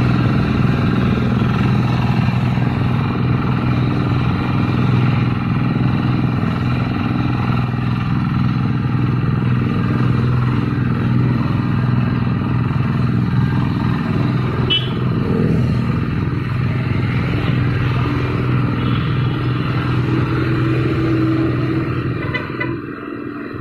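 Two-wheel hand tractor's single-cylinder diesel engine running steadily as it pulls a loaded trailer along the road. The engine sound falls away somewhat near the end.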